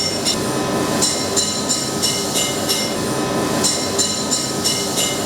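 Hammer blows on metal at an anvil, an uneven run of about two to three strikes a second, each one ringing bright and high.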